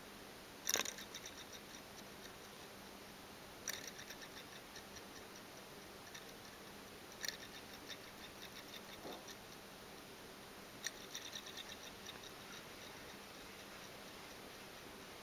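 Homemade electric motor's coil ticking against its paper-clip supports: four times a sharp click followed by a second or so of quick ticks that slow and fade, as the coil is set turning and runs down.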